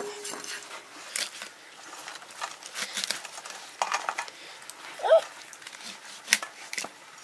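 Cooking utensils knocking and clinking now and then, in short scattered clicks. One short high call rises and falls about five seconds in.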